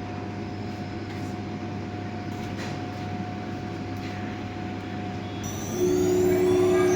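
CNC router cutting PVC board: a steady machine hum with a held tone. About six seconds in it gets louder, with a rising high whine as the spindle picks up speed.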